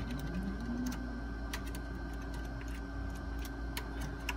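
Light, irregular clicks and taps of a small USB wireless keyboard adapter being handled and plugged into a desktop computer, over a steady electrical hum.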